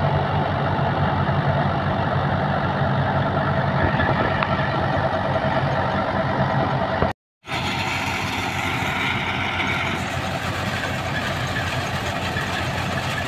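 Mahindra 585 XP tractor's diesel engine running steadily while driving a straw reaper that chops and blows wheat straw, a continuous engine hum mixed with the machine's mechanical clatter. The sound cuts out for a moment about seven seconds in, then carries on.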